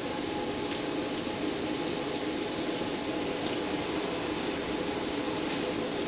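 Floured chicken pieces and Italian sausage sizzling steadily in a hot skillet of butter and oil, with a steady hum underneath.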